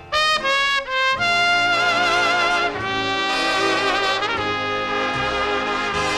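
Background music: a big-band instrumental passage led by trumpet and brass, with no singing.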